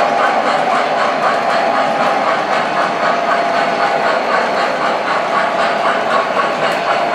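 O scale model steam locomotive, an MTH 4-6-4 New Haven Hudson, running with its onboard sound system giving a steady, rapid chuffing over the whir of its wheels on the track.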